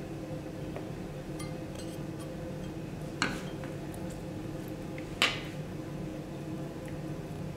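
Two sharp clinks of metal kitchen tools, about two seconds apart, with a few faint ticks before them, as boiled eggs are pressed through a hand-held metal grid chopper into a plastic bowl and halved with a knife. A steady low hum runs underneath.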